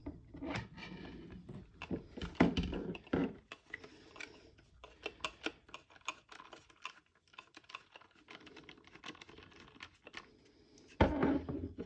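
Hand tool with a long adapter tightening a screw into a 3D-printed airsoft chassis: a run of small, irregular clicks and taps as the tool and parts are handled. A louder knock comes near the end.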